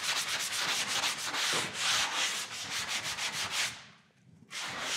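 Medium-grit sanding sponge rubbed in quick back-and-forth strokes over a dried patch of fast-setting joint compound (hot mud) on drywall, a steady rhythmic scratchy hiss that knocks down the patch's high points before the next coat. The strokes stop briefly about four seconds in, then start again.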